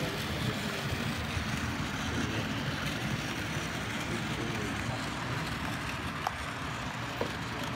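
Bachmann OO-gauge Maunsell N Class 2-6-0 model locomotive running with its coaches: a steady rumble of the motor and wheels on the track, with a few faint clicks near the end.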